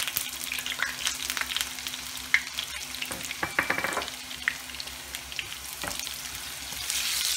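Chopped garlic and dried red chilies sizzling and crackling in very hot oil in a frying pan, the start of a tempering. A wooden spatula stirs them near the end as the sizzle grows louder.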